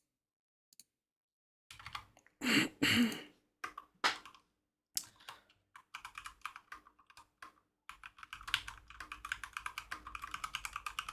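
Typing on a computer keyboard. Two louder thumps come about two and a half seconds in, then scattered keystrokes, then a fast, steady run of keystrokes from about eight seconds in.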